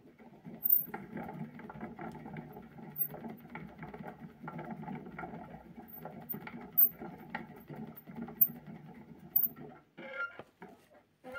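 Metal mesh hamster wheel spinning under a running hamster: a steady rumble with scattered clicks and rattles. It stops near the end, when the hamster halts, leaving a few light clicks.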